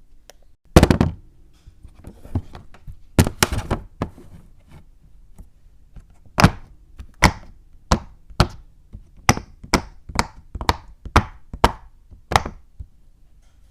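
A run of sharp taps and knocks: a few scattered strikes at first, then a fairly even series of about two a second from around six seconds in.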